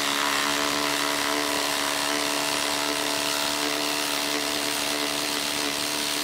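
DeWalt XR (DCF887) quarter-inch impact driver running continuously under load, its hammer mechanism impacting at a steady, unchanging rate as it backs a long fastener out of a log.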